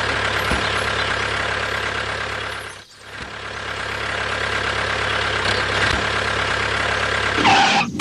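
Truck engine running steadily, cutting out briefly about three seconds in and then building back up.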